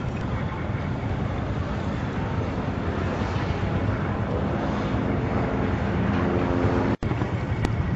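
An M29 Weasel tracked vehicle is driving over sand and dirt, its six-cylinder Studebaker engine running steadily under load. The sound cuts out for an instant about seven seconds in.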